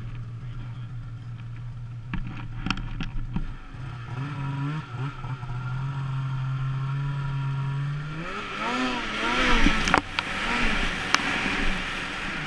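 Polaris Axys two-stroke snowmobile engine idling steadily, then revving up and down as the sled drops off a cliff. A sharp thud about ten seconds in marks the landing, and snow sprays around the sled.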